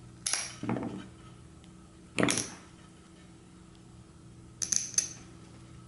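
Hand cutters biting through a braided nylon outboard pull-start cord: a few short crunching snips a second or two apart, then a quick cluster of sharp clicks near the end.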